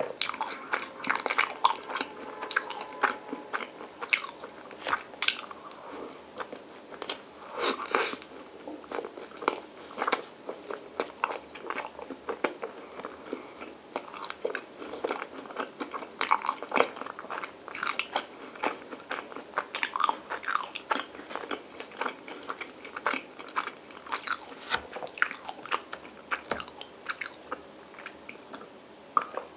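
A person chewing white bread spread with Nutella and ice cream: a dense run of wet mouth clicks and small crackles from the crust. Near the end come sips of milk.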